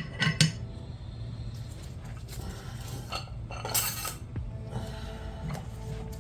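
Steel and friction clutch plates from a 4L80E automatic transmission's forward clutch pack clinking against each other and the drum as they are handled. There are a few sharp metallic clinks, the loudest about half a second in and again around four seconds in.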